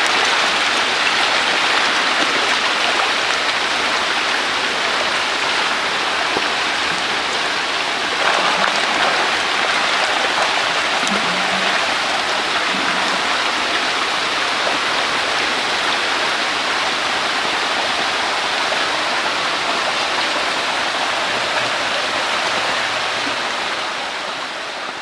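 Thousands of young hybrid magur catfish splashing and churning at the water surface as they feed, a dense, steady rain-like patter that fades out near the end.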